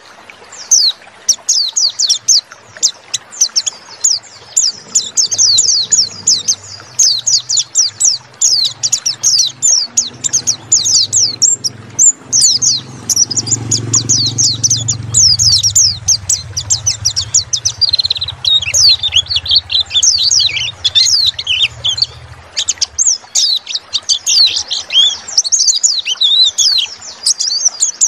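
White-eyes (pleci, Zosterops) singing a loud, fast, unbroken stream of high twittering chirps: a lure song meant to set a reluctant caged white-eye singing with an open beak. A faint low hum runs underneath from a few seconds in until about two-thirds of the way through.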